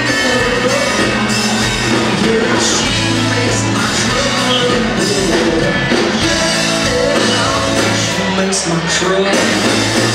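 Live country-rock band playing, with a male lead singer singing into a microphone over the drums and amplified band.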